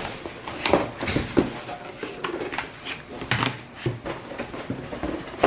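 Packaging rustling, with irregular light clicks and knocks, as an item is unwrapped and lifted out of its box.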